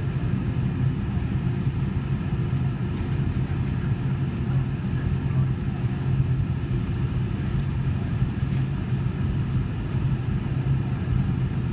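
Steady cabin drone of a Boeing 717 in its climb after takeoff: the low hum of its two rear-mounted turbofan engines mixed with airflow noise, heard from inside the cabin, unchanging throughout.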